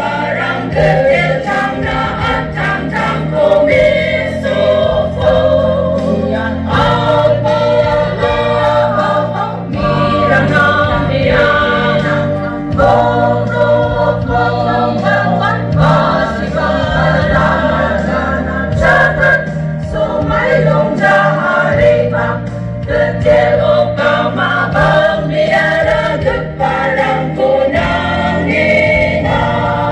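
A choir singing a gospel hymn over a sustained low accompaniment whose notes change every few seconds.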